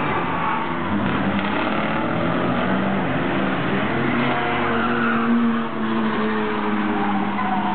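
Engines of several old budget endurance race cars running together as a pack goes through a turn, their notes overlapping at different pitches.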